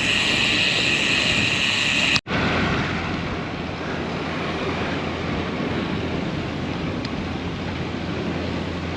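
Steady rush of wind over the camera microphone while riding a road bike, with a brief dropout about two seconds in.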